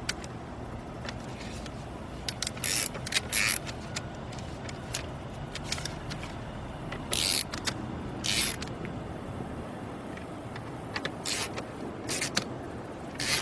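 Hand ratchet clicking in short bursts on its return strokes, spread a second or a few apart, while it tightens the clamp bolts of a battery terminal.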